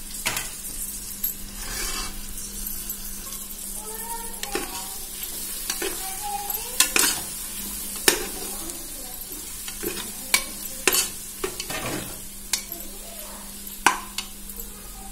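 Onion, tomato and spice masala frying and sizzling in oil in a pressure cooker pot as it is stirred, with sharp scrapes and knocks of the spoon against the pot every second or two.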